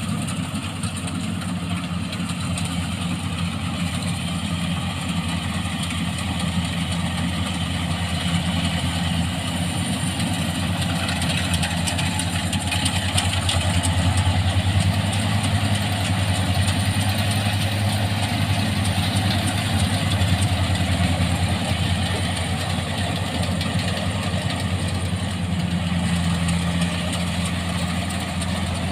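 Rice combine harvester's engine running steadily with threshing machinery, a low even hum that grows a little louder mid-way.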